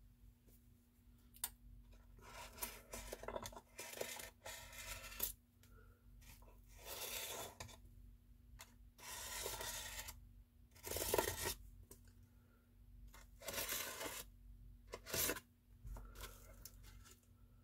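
An outline being drawn on styrofoam: a series of about eight short, scratchy strokes with pauses between them.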